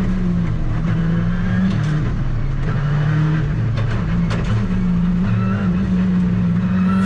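Ford Fiesta R5 rally car's turbocharged four-cylinder engine heard from inside the cockpit, its pitch stepping up and down as it revs and changes gear. A few sharp clicks and knocks cut through, about two seconds in and again around four seconds in.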